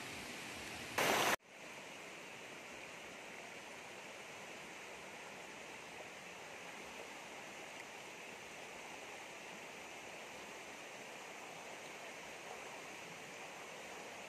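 Steady rushing of a shallow rocky river running over small rapids. About a second in, a brief loud burst of noise cuts off abruptly, and the water sound changes after it.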